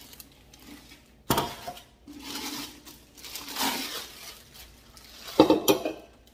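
Plastic bag crinkling as it is pulled off a glass kitchen canister, with a sharp knock about a second in. Near the end the glass canister clinks and knocks as it is set down on the countertop.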